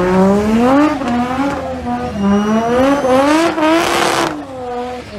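Car engine revving hard during a burnout, its pitch rising and falling again and again. A short burst of loud hiss comes about three and a half seconds in.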